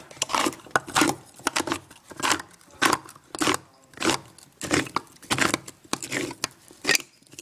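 Hand-turned can opener cutting around the lid of a tuna can, a short crunching stroke with each turn, about one and a half a second.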